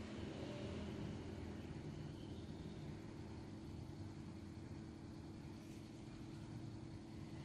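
Steady low mechanical hum with a few faint steady tones, like an engine idling or a machine running in the background.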